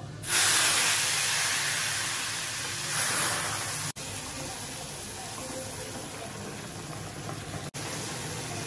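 Hot boiled milk poured into semolina roasted in ghee in a pan, setting off a sudden loud sizzle and hiss that slowly fades, surges again about three seconds in, then settles to a steady sizzle.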